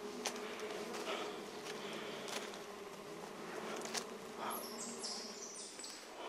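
Steady insect-like buzzing drone, a low hum of several stacked tones, with a few footfalls on leaf litter and rock.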